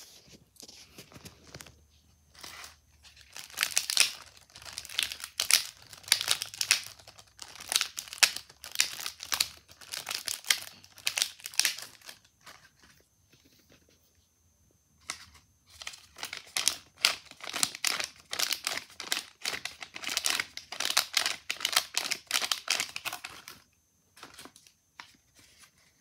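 Paper and crinkly foil wrapping being torn open and crumpled by hand, in two long bouts of dense crackling with a pause of about three seconds between them.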